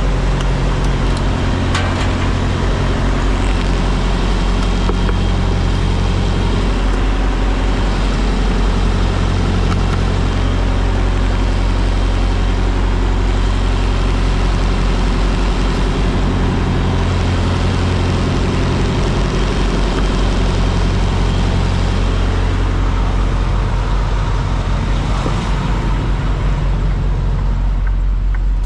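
Diesel engine idling steadily close by, a deep, even drone, with a few faint clicks about two seconds in.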